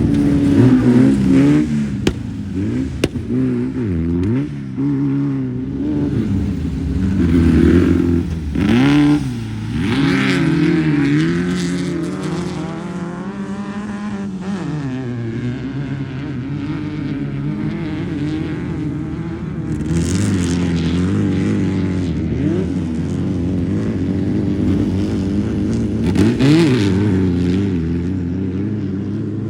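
Off-road race vehicle engines running hard, the pitch rising and falling again and again as the throttle is worked, loudest about eight to ten seconds in and again near the end.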